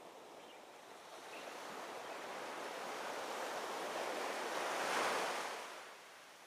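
Sea surf: a single wave swelling slowly, peaking about five seconds in, then washing away.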